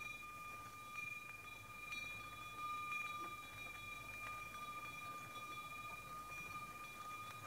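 A small bell, such as a horse's sleigh bell, ringing faintly and steadily on one high pitch, with soft strikes about once a second.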